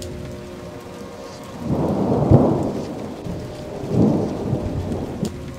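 Steady rain with thunder rumbling twice. The first rumble swells about two seconds in and is the louder, with a sharp clap at its peak. The second follows about four seconds in.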